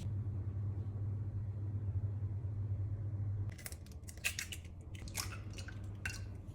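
Kitchen preparation sounds: a steady low hum, then from about halfway a series of sharp clicks and knocks of utensils and dishes being handled.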